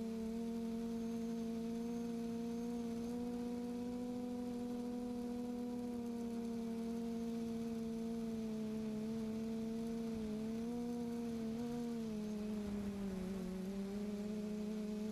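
Quadcopter's electric motors and propellers humming at a steady pitch, the tone sagging and wavering a little near the end.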